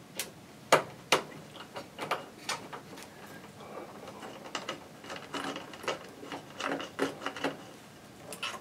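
Screwdriver turning out small screws from the metal chassis and rear-panel bracket of a Tektronix 7854 oscilloscope: irregular sharp clicks and light metallic rattling. The clicks come three at the start, then thicken into a busy run of small clicks and scrapes from about halfway to near the end.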